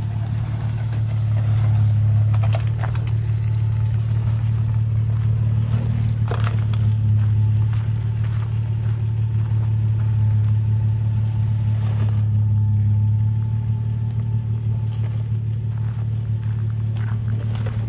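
Nissan Patrol GQ's 4.2-litre TB42 straight-six petrol engine running steadily at low revs as the 4x4 crawls along a rutted sand track, with a few faint clicks.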